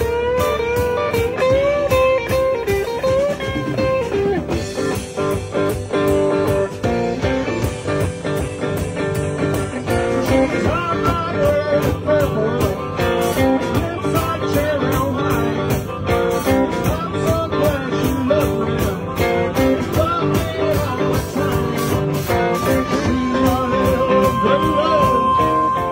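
Live blues band playing, with an electric guitar line full of bent notes over a steady drum beat. A long held note comes in near the end.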